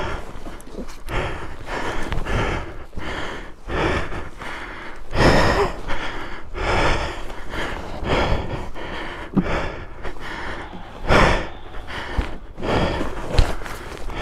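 A motorcycle rider breathing hard, a steady run of heavy breaths in and out, with two deeper gasps about five and eleven seconds in.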